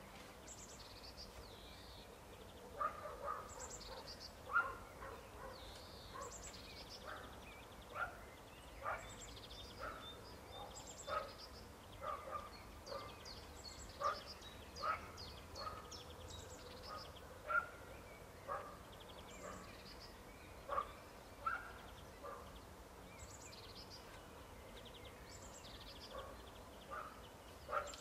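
Faint outdoor backdrop of short animal calls repeating about once a second, with small birds chirping high above them.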